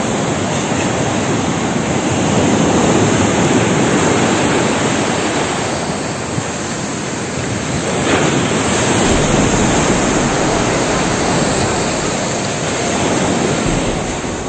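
Ocean surf washing up the beach in a steady loud rush, swelling and easing every few seconds.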